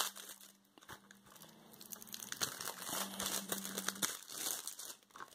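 Thin plastic shrink wrap crinkling as it is peeled off a Blu-ray case by hand: a sharp crackle at the start, a quieter moment, then a run of small irregular crinkles.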